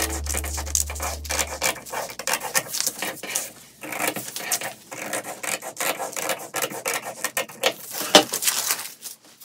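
Scissors snipping through folded brown kraft drafting paper in a quick run of cuts, with the paper rustling as it is turned. A single sharper knock comes about eight seconds in.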